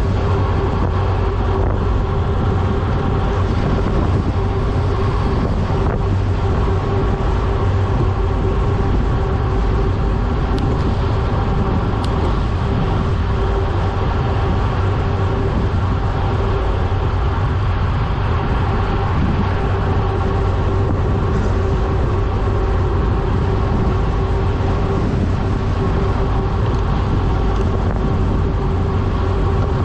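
Wind rushing over the camera microphone and tyre noise from a road bicycle descending at about 30 mph, a steady loud rush with a constant hum under it.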